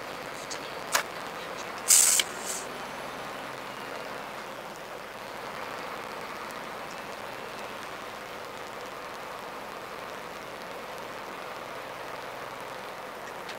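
Steady road and running noise inside the cab of a Scania R450 truck on the move, heard as an even hiss. A sharp click comes about a second in and a louder short knock about two seconds in.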